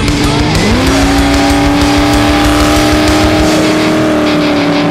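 Supercharged Ford SVT Lightning pickup V8 engines at full throttle in a roll race, heard from inside the cab. The engine note dips and climbs back about half a second in, then holds a steady high drone.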